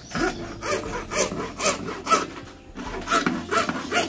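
Hacksaw cutting a small piece of PVC pipe by hand, in back-and-forth strokes about two a second, with a brief pause partway through.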